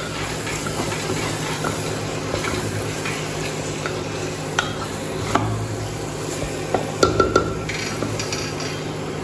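A spatula stirring and scraping chickpeas, potatoes and spice paste in a pressure cooker pan, with a light sizzle: the chickpeas being fried in the masala before water goes in. Scattered clicks of the spatula on the pan, with a quick cluster of them about seven seconds in, over a steady low hum.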